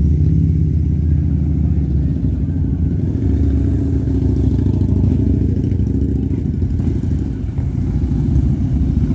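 Heavy cruiser motorcycles, a Harley-Davidson V-Rod among them, riding slowly past one after another, their engines making a steady, deep, loud sound.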